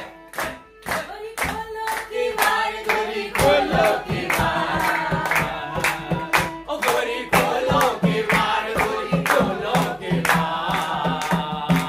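Group of voices singing a traditional Holi folk song, with steady rhythmic hand-clapping and a wind instrument playing along.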